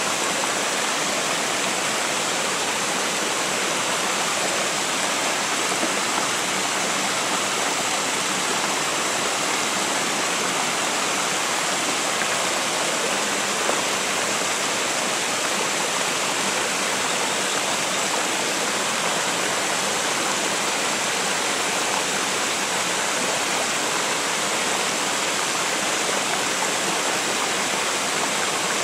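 Steady rushing of a small mountain river spilling over a low stepped weir and running across rock shelves.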